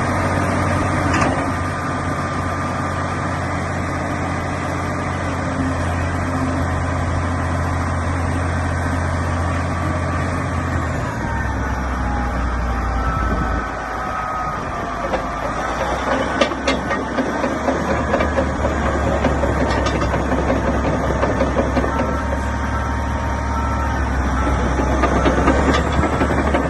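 Caterpillar D8R crawler bulldozer's diesel engine running steadily; about eleven seconds in the engine note drops lower. From about fifteen seconds on, irregular clanking and rattling join the engine, with a few faint squealing glides.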